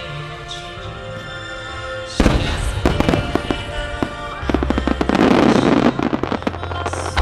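Music played for a fireworks finale, then about two seconds in a salvo of aerial firework shells starts bursting: many sharp reports in quick succession with crackling, loudest about five seconds in.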